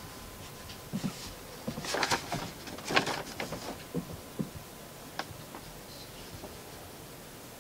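Light handling noise: a cluster of clicks, knocks and rustles about one to three and a half seconds in, the loudest a sharp knock about three seconds in, then a few scattered ticks.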